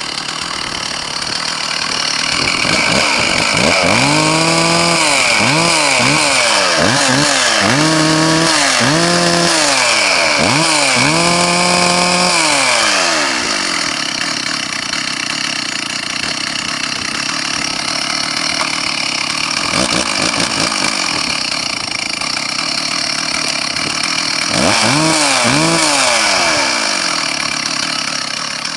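Stihl 064 two-stroke chainsaw engine running, with the throttle blipped about eight times in quick succession so it revs up and drops back each time. It then settles to a steady idle, with two more quick revs near the end.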